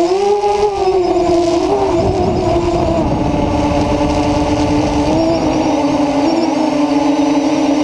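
FPV quadcopter's electric motors and propellers whining in flight, heard from the camera on the craft. The pitch climbs just after the start as the throttle comes up, then holds steady with small dips and rises.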